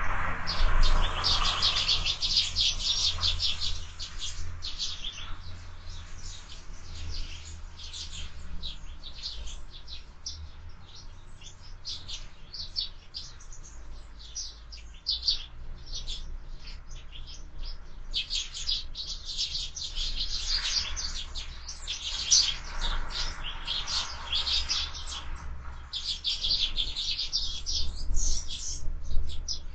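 Sparrows chirping at a feeder: a run of short, high chirps, thickening into dense chattering bouts at the start and again through the second half. A low steady rumble runs underneath.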